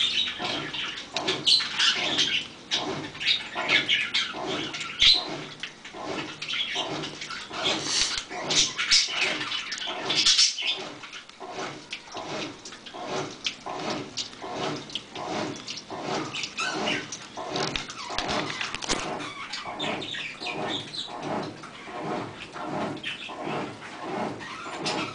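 Mabe 15 kg washing machine in its wash cycle, churning the water and clothes with a rhythmic swish about one and a half times a second.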